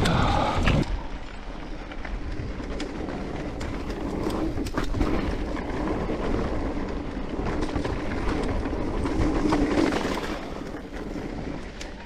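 Giant Reign E+1 electric mountain bike rolling down a dirt forest trail: tyre noise with the bike rattling and many sharp knocks over roots and bumps, loudest in the first second.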